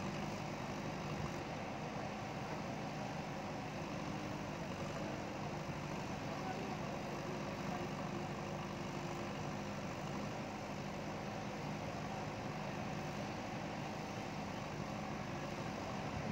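JCB backhoe loader's diesel engine running steadily at an even speed, without revving.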